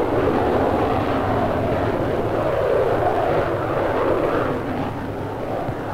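Jet noise from the de Havilland DH.110's two Rolls-Royce Avon turbojets as the fighter flies its display, a steady rushing roar that eases a little in the second half.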